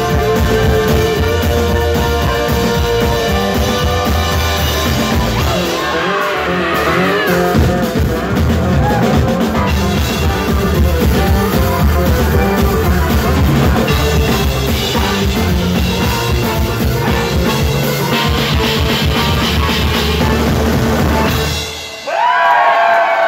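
Bluegrass-style folk band with drum kit playing a hard-rock cover at full volume, ending about 22 seconds in. Right after, a crowd starts cheering and shouting.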